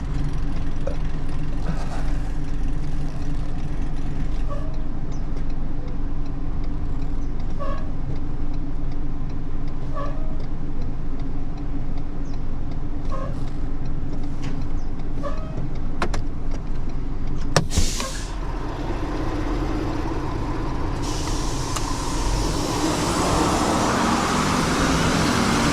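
Motor vehicle engine running steadily at idle, with a sharp click about two-thirds of the way through and a broad rushing noise building over the last few seconds.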